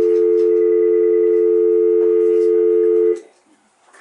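Loud telephone dial tone on the call-in line after the caller's call has dropped: a steady two-tone hum that cuts off suddenly about three seconds in.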